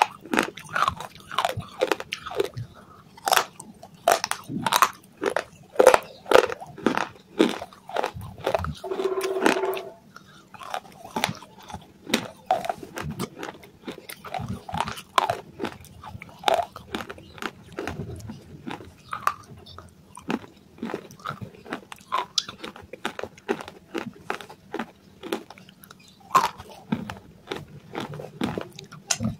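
Close-up crunching and chewing of pieces of clay: a run of sharp, crackly bites in the first ten seconds, then softer, sparser chewing crunches. A brief hum comes at about nine seconds.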